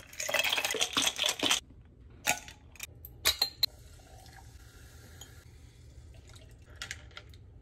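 Ice cubes tipped into a glass jar, clattering for about a second and a half, then a few separate clinks of ice against glass. Tonic water then pours faintly over ice in a tall glass, with a few light clinks near the end.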